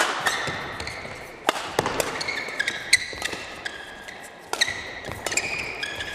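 Badminton doubles rally: sharp cracks of rackets striking the shuttlecock about every second and a half, with court shoes squeaking on the floor between shots.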